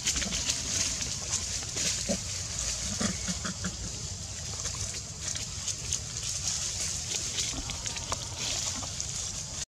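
A macaque giving a few short low grunts, about two seconds in and again around three seconds in, over a steady high hiss with scattered faint clicks.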